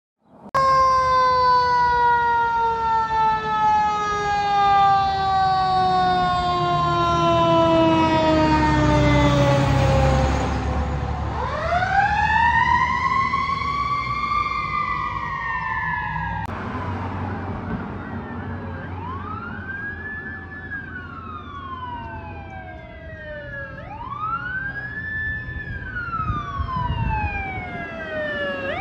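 Fire engine sirens on emergency response. First a long siren tone falls slowly over about ten seconds over a low engine rumble, then rises and falls once slowly. After a break, a wail siren rises and falls about every four to five seconds as an engine approaches.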